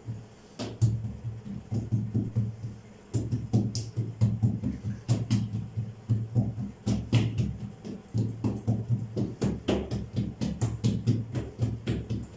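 Background music with a steady beat, starting about half a second in.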